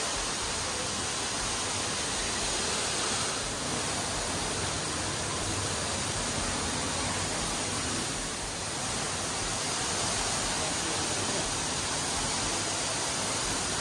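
Steady, even rush of falling water.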